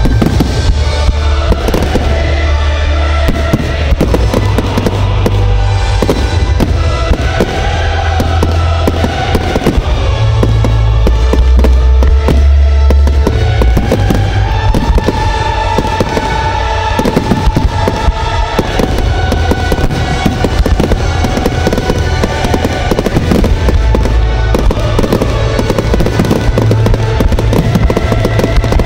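Aerial fireworks bursting and crackling in rapid succession, with loud music playing alongside.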